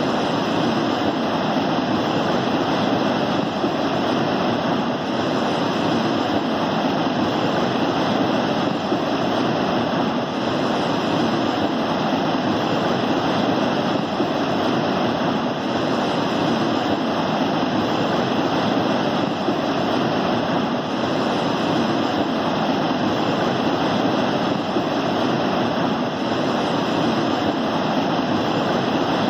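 Water pouring over a river check dam: a loud, steady rush of falling water.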